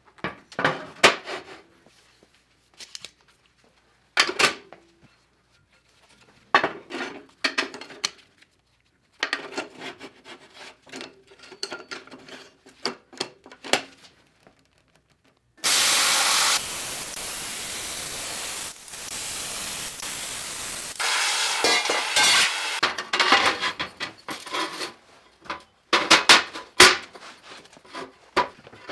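Metal parts and a steel plate knocked and clattering as they are set down and handled on a steel welding table, in short separate bursts. About halfway through, a steady rushing hiss runs for about five seconds, loudest as it starts.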